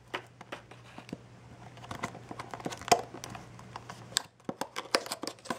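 Clear plastic packaging crinkling, with irregular clicks and snaps, as a tight-fitting plastic insert is worked open to free a mini drone.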